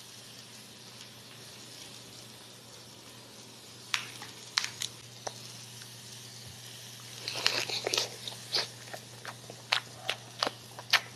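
Close-miked eating sounds of a lettuce wrap with grilled sausage: sharp, crisp crunches and wet mouth clicks start about four seconds in and come in a quick cluster, then as single snaps. Before that only a faint steady hiss and low hum.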